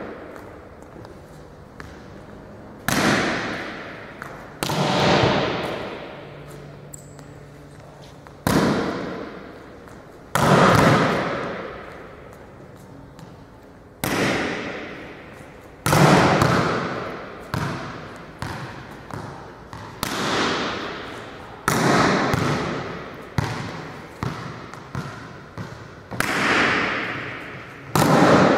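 Volleyball being hit and bouncing off a hardwood gym floor: a series of sharp smacks every second or two, each trailing a long echo through the large sports hall.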